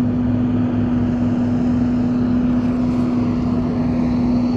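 A steady low hum holding one constant pitch, over a faint even hiss.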